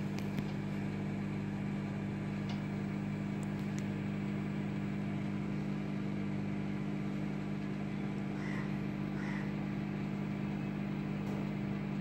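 Haier solo microwave oven running while it heats food, with a steady low hum.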